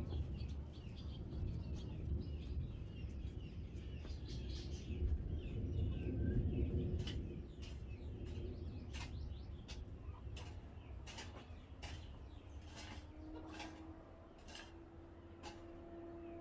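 Birds chirping over a low rumbling noise; from about seven seconds in come scattered sharp clicks, and a steady low hum starts near the end.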